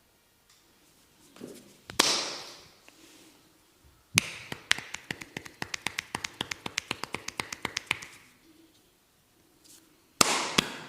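Percussive head massage: a sharp slap, then a fast even run of taps at about eight a second lasting nearly four seconds, then two more slaps near the end.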